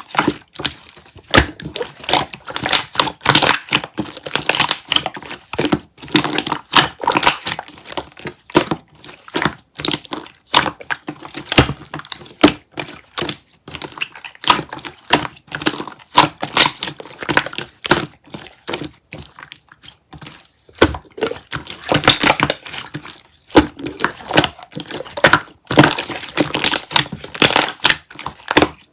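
Peach Mychew chewy candies and their wrappers handled close to the microphone: dense crinkling and crackling in irregular bursts of quick clicks, with brief pauses.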